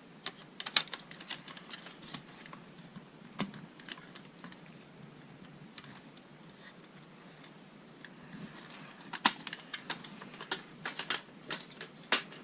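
Scattered small clicks and taps of plastic parts being handled and pried at on an original Xbox DVD drive, coming thicker and louder near the end.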